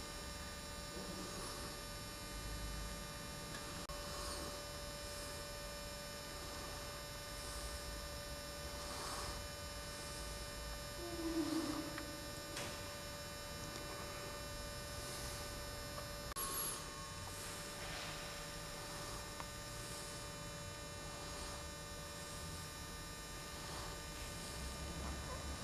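Steady electrical hum with a stack of faint steady tones over low room noise. A short falling tone stands out about halfway through, and a brief high tone comes a few seconds later.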